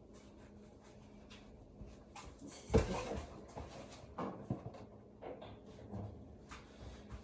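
Scattered light knocks and clicks of kitchen items being handled, with one louder thump about three seconds in.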